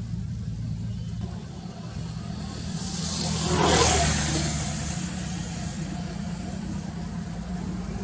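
A motor vehicle passing by, its noise swelling to a peak about four seconds in and then fading, over a steady low engine hum.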